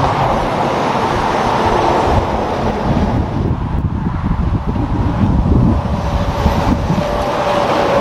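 Semi tractor-trailers passing on a highway at speed: a steady rush of tyre and diesel engine noise, with a faint whine that falls slightly in pitch near the end as a truck goes by close.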